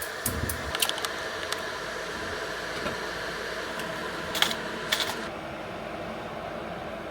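A steady mechanical hum, like a small appliance motor running, with a few sharp clicks and taps: a cluster in the first second or so and two more about four and a half and five seconds in.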